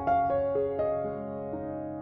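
Background music: a soft, slow piano melody of single notes, each struck and left to ring.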